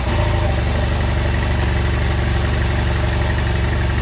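BMW F800GS motorcycle's parallel-twin engine idling steadily, seconds after a cold start on the second attempt after months of winter lay-up.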